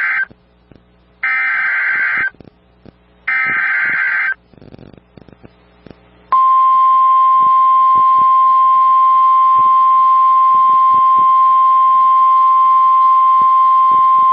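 NOAA Weather Radio SAME header: the tail of one burst of screeching digital data and then two more one-second bursts, encoding a tornado warning. About six seconds in, a steady single-pitched 1050 Hz warning alarm tone begins, signalling that a warning message follows.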